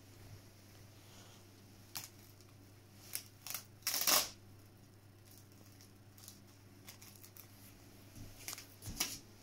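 Hook-and-loop (Velcro) strap on the neck collar of a fabric sack being pulled open and pressed shut: short rasping rips, the loudest about four seconds in and more near the end, with fabric rustling between.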